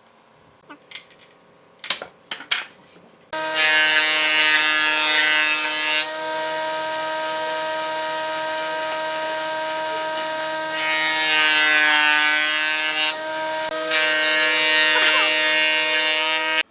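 A few light knocks, then an electric power tool starts about three seconds in and runs with a steady whine and a hiss. The hiss and loudness drop for a few seconds in the middle and return, the pitch sagging slightly at one point, before the tool stops abruptly near the end.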